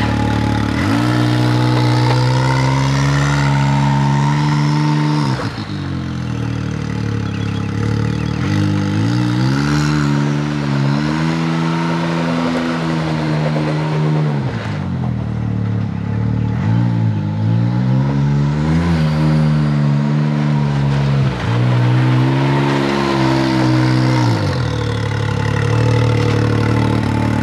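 Side-by-side UTV engine revving up, holding its speed for a few seconds and dropping back to idle, about four times over.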